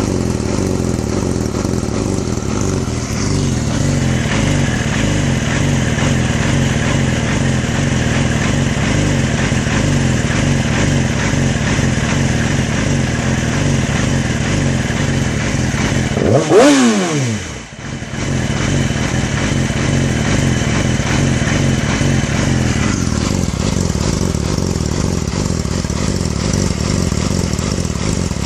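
2006 Yamaha YZF-R6 inline-four engine idling with an uneven, pulsing beat, which the owner calls a rough idle. About two-thirds of the way through the throttle is blipped once and the revs shoot up and fall straight back to idle.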